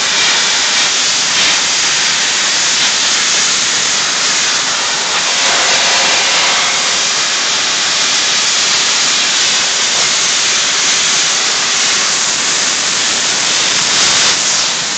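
Soda blasting nozzle hissing steadily and loudly as a low-pressure jet of blast media scours scale off a stainless steel heat exchanger plate.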